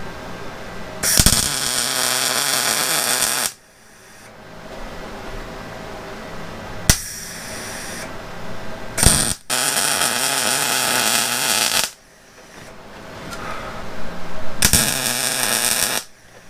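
MIG welder arc crackling and sizzling in stop-start bursts as a broken steel shaft from a Hobart industrial dough mixer is welded back together: three runs of two to three seconds each with a short tack between them.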